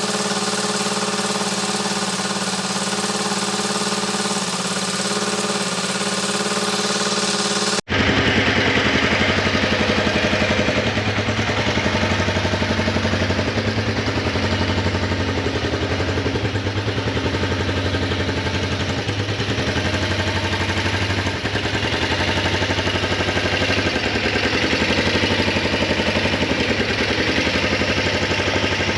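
Kawasaki 454 LTD's parallel-twin engine running at a high idle as it warms up, just after its first start in a long time. The owner suspects the carburettors need cleaning. About eight seconds in the sound breaks off for an instant, and it carries on rougher, with a low throb.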